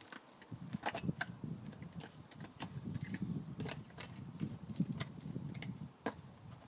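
Irregular metallic clinks and scrapes, like climbing gear jangling on a harness as a climber moves up a rock crack, over a low rumble.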